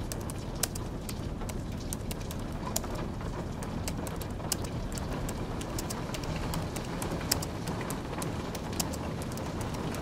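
Keystrokes on a low-profile computer keyboard, quick irregular clicks, over a steady hiss of rain.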